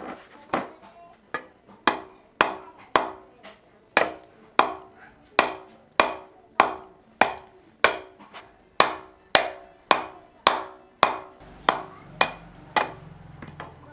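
Tool repeatedly chopping or striking wood in steady blows, about two sharp knocks a second, each ringing briefly. A low hum comes in near the end.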